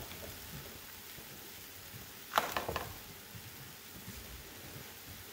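A short clatter of a few sharp knocks about two and a half seconds in, over faint steady background noise.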